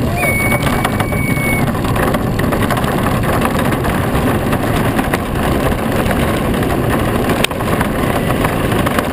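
Wheels rumbling on rough asphalt and wind rushing past a soapbox racer rolling downhill, heard from onboard as a loud, steady rush. A thin whistle sounds for the first second or so, and there is a single sharp knock about seven and a half seconds in.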